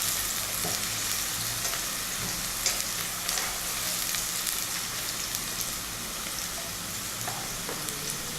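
Chopped onion frying in vegetable oil in a pan, a steady sizzling hiss with scattered small crackles and pops, as the onion browns.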